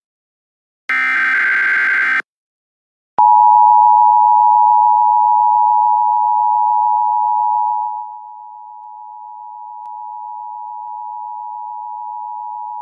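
The last buzzy digital data burst of an Emergency Alert System header. After a short gap comes the EAS attention signal: a steady two-tone sound of 853 and 960 Hz, loud at first and dropping in level about eight seconds in.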